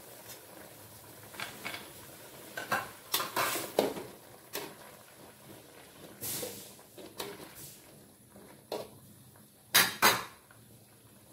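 Metal spoon scraping and clinking against an aluminium wok while stirring a simmering stew: a run of uneven scrapes and knocks, with two sharp, louder knocks close together near the end.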